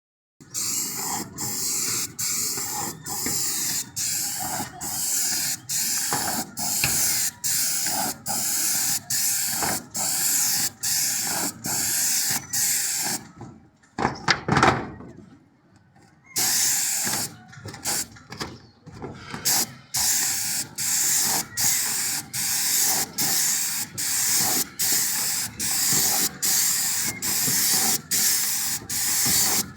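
Paint sprayer hissing in a long run of short spray passes, each broken off by a brief gap about every two-thirds of a second. About halfway there is a pause of a few seconds with a louder rumbling clatter, then the passes resume.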